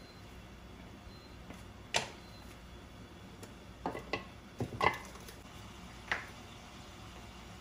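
Chicken pieces frying under the lid of a stainless steel pan: a faint steady sizzle with a handful of sharp pops, the loudest about two seconds in and just before five seconds.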